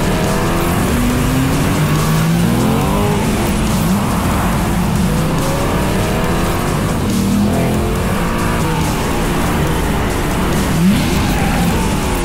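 Chevrolet Corvette Stingray's 6.2-litre V8 revving hard and repeatedly, its pitch climbing and then dropping over and over as the car is driven fast through gear changes.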